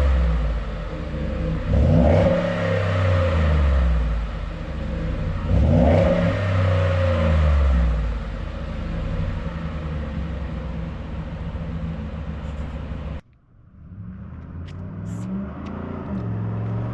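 Ford F-150 engine breathing through a Flowmaster dual exhaust with two-chamber mufflers, revved up and back twice in the first six seconds, then running steadily. After a sudden cut about 13 seconds in, the engine runs lower and quieter.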